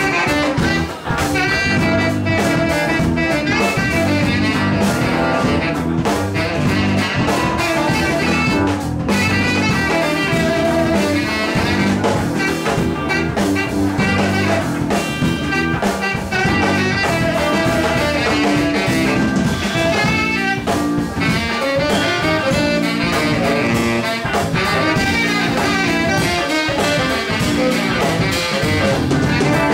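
Live jazz band playing an instrumental passage: saxophone and a brass horn over electric guitar and drum kit.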